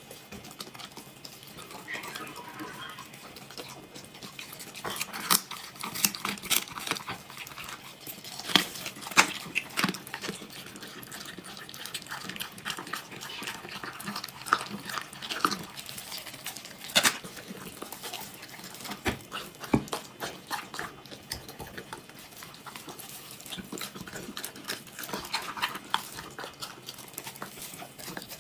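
Golden retriever eating from a hand, chewing with irregular wet smacks and crunches, busiest through the middle stretch.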